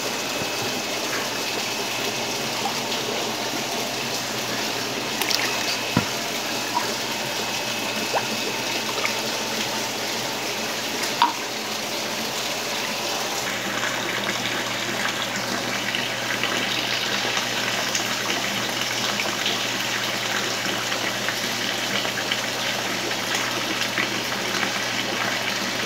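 Steady running water, a constant flow trickling and splashing, with a few light knocks.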